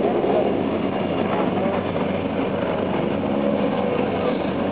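Helicopter in flight, a steady, unbroken engine and rotor noise.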